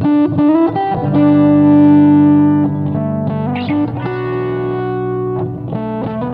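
Electric guitar instrumental played through effects with light distortion: melodic notes that slide up in pitch early on, then a strong note held for about two seconds before the line moves on.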